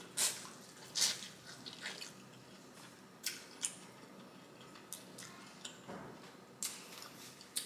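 Close-up eating sounds: a sauced piece of corn on the cob being bitten and chewed, with short wet clicks and smacks of the mouth about once a second.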